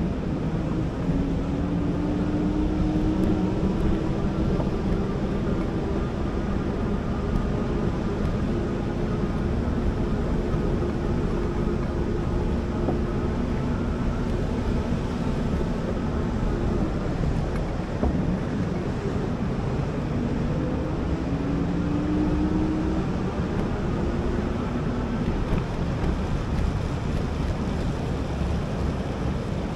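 Wind rushing over the microphone with the wash of surf. Under it, a motor hum that rises slightly in pitch about a second in and holds, fades out a little past halfway, then comes back for a few seconds.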